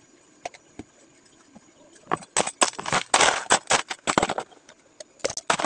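Ice cubes clattering and a plastic bag crinkling as ice is shaken out of the bag into plastic cups. It starts with a few scattered clicks, turns into a dense, rapid clatter from about two seconds in, pauses briefly, then resumes near the end.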